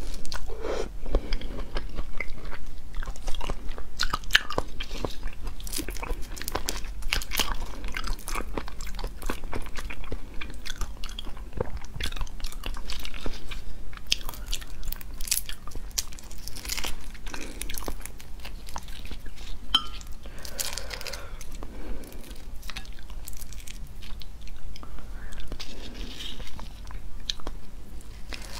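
A person biting and chewing red prawns, with the crackle of prawn shells being pulled apart by hand: many small wet clicks and crunches.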